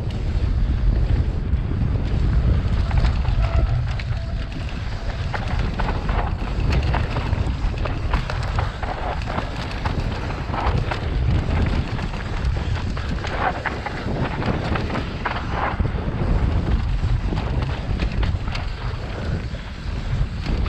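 Wind buffeting a helmet-mounted camera's microphone during a fast mountain bike descent on a dirt singletrack, a constant low rumble. Tyres and bike rattle and scrape on the trail in short bursts through the second half.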